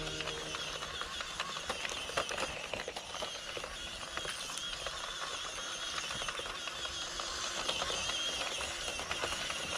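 Mini 1/18-scale RC crawler driving slowly over a dirt and rock trail: a dense, irregular crackle of small clicks as its tyres crawl over pebbles and grit, over a steady outdoor hiss.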